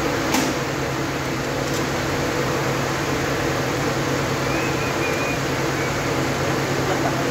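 Steady mechanical hum like a fan or air-conditioning unit, with a single sharp click about a third of a second in.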